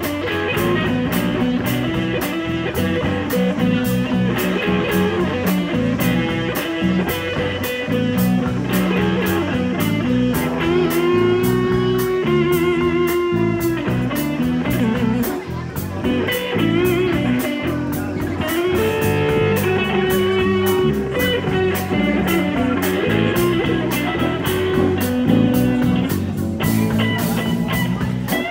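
Live blues band playing an instrumental passage, without singing: an electric guitar lead over bass and drums, with long held notes that waver and bend in pitch about halfway through.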